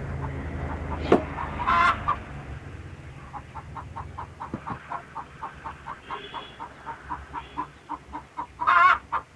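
A single axe blow splitting a log of firewood about a second in. Loud bird calls come just after the blow and again near the end, over a steady series of short chirps about three a second.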